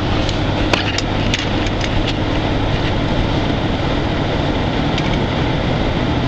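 Ford Expedition SUV on 33-inch tyres pushing through deep snow, heard from inside the cab: a steady engine hum under the rush of tyres and snow against the truck, with a few sharp clicks about a second in.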